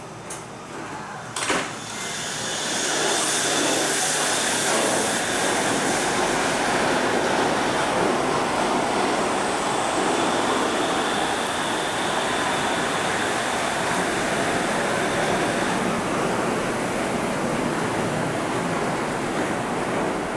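Shonan Monorail 5000-series suspended monorail train pulling out of the station. A sharp clack comes about a second and a half in, then the running noise builds quickly to a loud, steady rush with a thin high whine, and it slowly fades toward the end.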